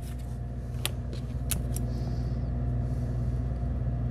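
A steady low mechanical hum, with three short sharp clicks in the first second and a half from balsa sticks being handled and cut with a hobby knife.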